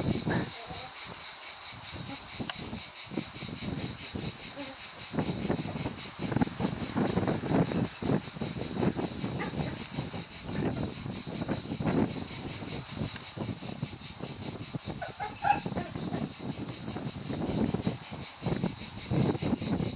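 Twenty-day-old Petit Basset Griffon Vendéen puppies shuffling and rustling about on blankets, with a brief faint squeak about three-quarters of the way through. A steady high chirring hiss runs underneath.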